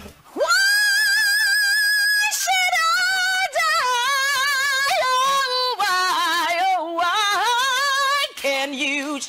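A female mezzo-soprano singing a cappella. She holds a long high note with vibrato, moves through quick runs and ornaments, and drops to a lower note near the end.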